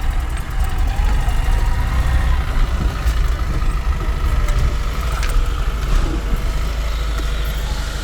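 VAZ 2107 on the move, heard from inside the cabin: its engine running with a steady low rumble and road noise, with a few faint scattered clicks.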